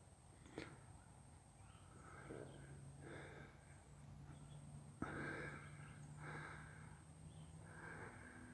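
Faint breathing close to the microphone, a soft breath roughly every second, with two sharp handling clicks, about half a second and five seconds in.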